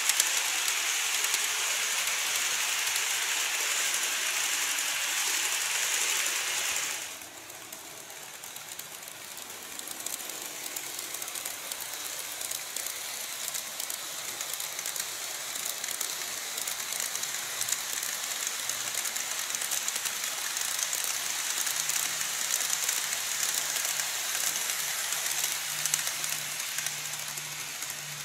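Model trains running on sectional track, with a steady rushing of small wheels over the rails and fine clicking at the rail joints. First a 787 series model runs, and the sound drops suddenly about a quarter of the way in. It builds again as an ED76-hauled train of 14 series coaches passes, with a low motor hum, and eases off near the end as the train leaves.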